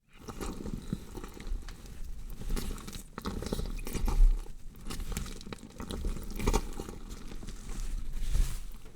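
Gore sound effect of a body being dissected: wet crunching, squelching and tearing of flesh in an irregular run of small cracks and surges, loudest about four seconds in.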